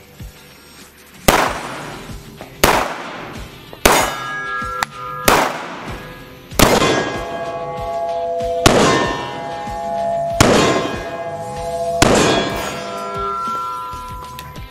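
Semi-automatic pistol fired shot by shot, about eight shots spaced one to two seconds apart. Each shot echoes off the walls of an indoor range.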